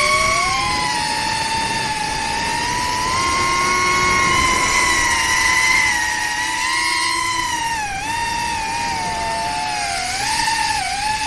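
FPV quadcopter's brushless motors whining steadily, the pitch drifting up and down with throttle, with short dips in pitch about eight and ten and a half seconds in.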